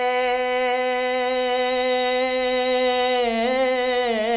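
A solo male voice singing a naat, holding one long note on a steady pitch. About three seconds in the note breaks into a wavering, ornamented melisma.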